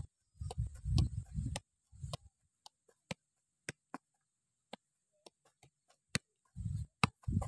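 A leather football being juggled off the foot and thigh: a string of sharp, irregular taps as the ball is struck, with low rumbling noise in the first two seconds and again near the end.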